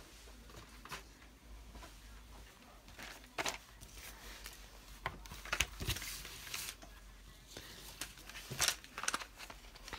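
Scattered light taps, scrapes and rustles of card and stiff plastic being handled on a wooden tabletop, as paper and a plastic-sleeved die-cutting plate are slid and moved about.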